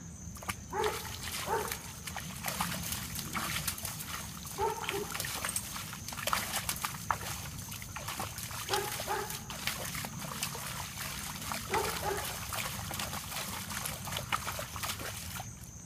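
Doberman puppy digging frantically in a muddy puddle with its front paws: a continuous run of wet slaps, splashes and sloshing mud. Short pitched sounds from the dog come every few seconds, often two close together.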